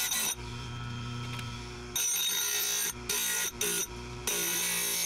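Oregon 520-120 chain grinder running while its quarter-inch grinding wheel is dressed against the dressing stone. Several short loud grinding contacts come in passes, with the quieter hum of the motor and spinning wheel between them.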